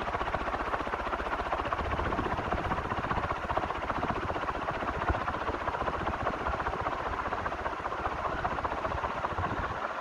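Rosa ceiling fan running at speed: a steady whirring of the motor and air rushing off the blades, over a low rumble that eases near the end.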